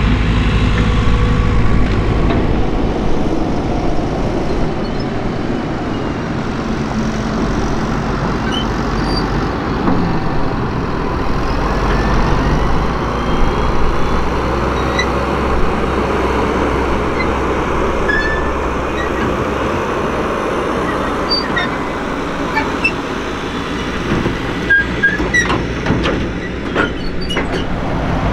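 Heavy diesel engines of earthmoving machinery at work: a New Holland E145 excavator running, then a Fendt 820 Vario tractor pulling a dump trailer across soft, rutted soil. A few sharp clanks come near the end.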